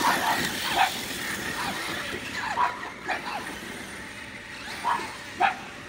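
Electric ARRMA RC car running across the dirt, its motor and tyres fading as it drives away. A dog barks in short yips several times throughout.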